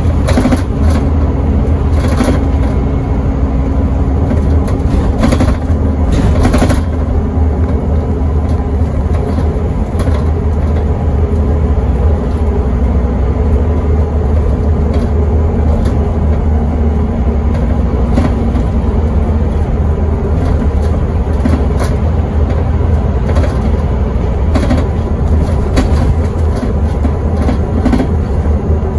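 Scania N270UD double-decker bus's nine-litre five-cylinder diesel running under way, heard inside on the upper deck: a steady heavy low rumble with road noise. Short knocks or rattles come through now and then, several of them in the first seven seconds.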